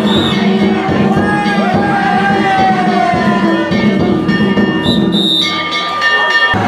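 Danjiri festival music, drum and ringing hand gongs, over a crowd's voices.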